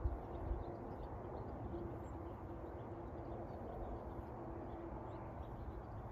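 Riverside outdoor ambience: a steady rushing background with a faint steady hum and scattered faint small-bird chirps. Two soft low thumps come in the first half second.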